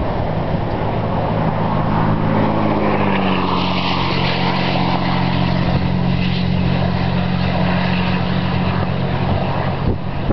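Steady low hum of an idling vehicle engine. A car passes on the highway, its road noise swelling and fading a few seconds in.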